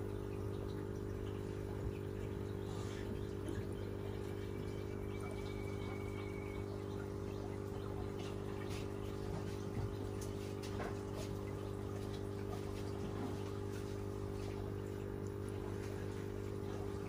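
Steady low hum of aquarium equipment, with faint scattered ticks.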